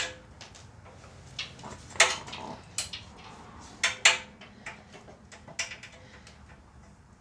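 Metal clinks and knocks of nuts, washers and hand tools being handled while fastening the blade bolts on a wood chipper, a few sharp clanks standing out, the loudest about two and four seconds in.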